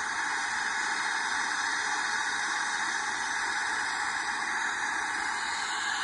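Air ambulance helicopter running on the helipad: a steady, even rushing hiss from its turbines and rotor, with no distinct blade beat.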